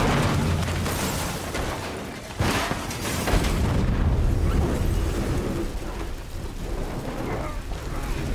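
Car crash sound effects: a heavy impact at the start and a second sudden boom about two and a half seconds in, followed by a low rumble as the wrecked car burns.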